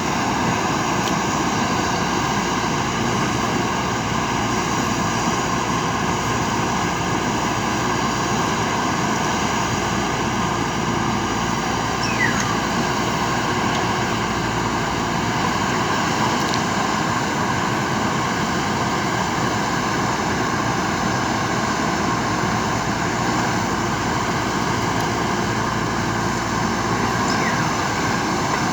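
Steady machine noise at a constant pitch: a low rumble with a high, even whine over it, with no change in speed.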